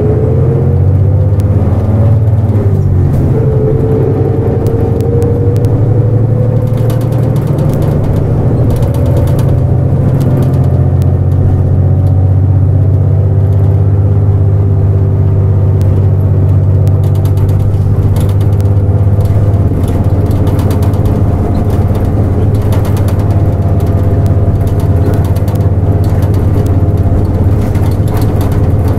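Nissan Diesel JP (KL-JP252NAN) city bus's diesel engine heard from inside the cabin, rising in pitch as the bus pulls away. The pitch drops at a gear change about three seconds in, climbs again more slowly, then the engine runs steadily.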